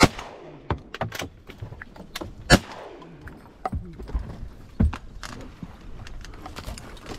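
Duck hunters' shotguns firing a quick volley of shots over about five seconds, the loudest about two and a half seconds in.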